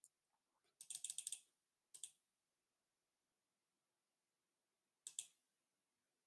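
Computer keyboard keystrokes, faint: a quick run of about eight clicks about a second in, a single click at two seconds, and a couple more near the end.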